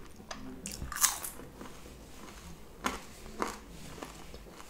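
A french fry being bitten and chewed close to a microphone: a few short crisp mouth sounds, the strongest about a second in.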